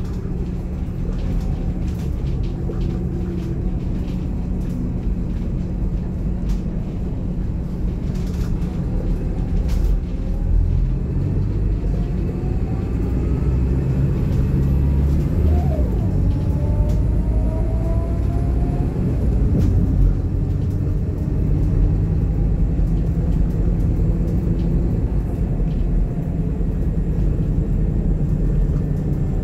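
Scania DC9 inline five-cylinder diesel engine and ZF Ecomat automatic gearbox heard from inside the bus while driving: a steady low drone. The drone grows louder about ten seconds in, and a faint rising whine comes through in the middle.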